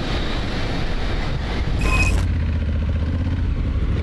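Motor vehicle riding noise: a steady low engine and road rumble. About two seconds in there is a short sharp hiss with a brief tone in it, after which the sound turns duller.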